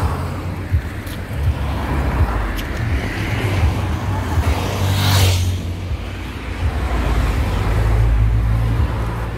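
Road traffic with wind buffeting the microphone as a heavy low rumble; a vehicle passes about five seconds in.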